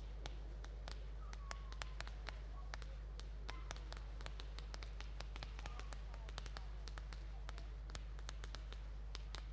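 Faint, irregular crackling pops from a fireworks display of red rising comets, several sharp cracks a second, over a steady low hum.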